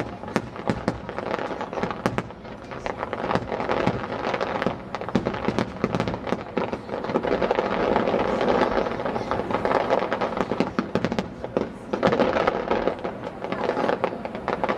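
Fireworks display: aerial shells bursting one after another in quick succession, with sharp bangs over a dense, continuous crackling.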